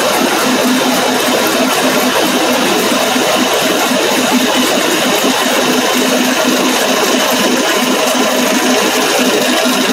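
Plastic granule-making plant machinery running steadily: a constant hum over dense mechanical noise.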